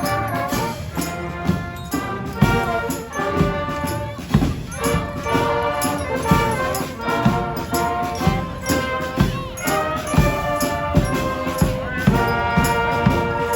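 Street brass band playing: horns hold and change notes over a steady drum beat.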